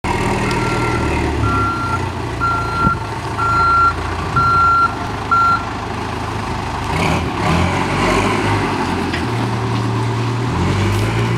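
Caterpillar 416E backhoe loader's diesel engine running, with its reversing alarm beeping six times, about once a second, then falling silent about halfway through. The engine note rises and falls in the second half as the machine moves.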